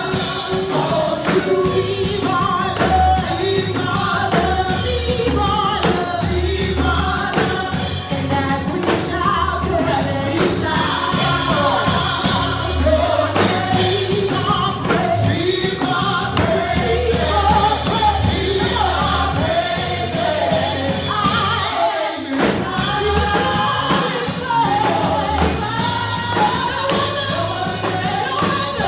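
Gospel praise and worship singing: voices singing over a band with a steady bass line. The bass drops out briefly about three-quarters of the way through.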